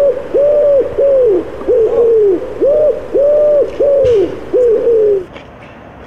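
A series of about nine loud, coo-like hoots, each rising and then falling in pitch, close to two a second, stopping about five seconds in.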